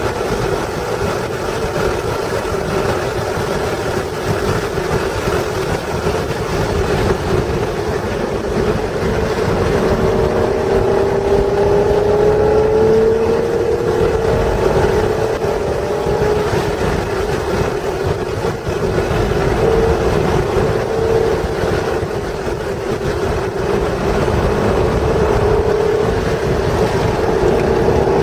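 The 1996 Acura NSX's stock 3.0-litre V6 running hard at speed on track, its note climbing as the car accelerates about halfway through and again near the end, with wind and road noise underneath.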